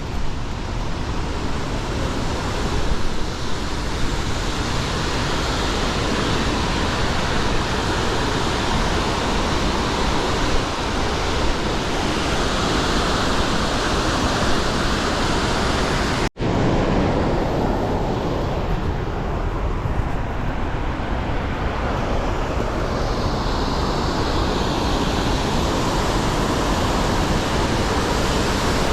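Steady, even rush of creek water cascading down Boulder Creek. It cuts out for an instant about sixteen seconds in, then carries on as before.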